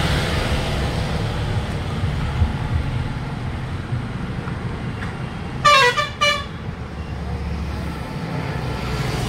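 Steady low rumble of road vehicles, with a vehicle horn giving a quick double honk about six seconds in.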